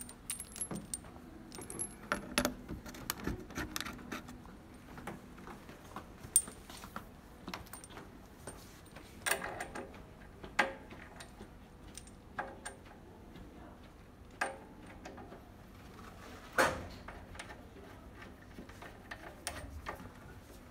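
Irregular clicks, clinks and knocks of the GDQ-2D well logging equipment's hardware being handled and connected. The sharp sounds come every second or few, with the loudest knock about three-quarters of the way through.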